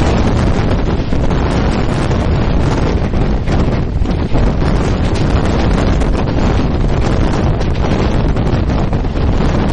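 Wind buffeting the microphone from a moving train: a loud, steady rushing with a deep rumble underneath.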